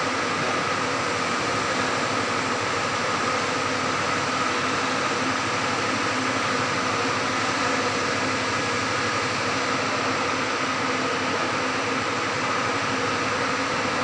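Steady drone of ventilation fans in an underground car park: an even rushing noise with a faint hum and whine in it, unchanging throughout.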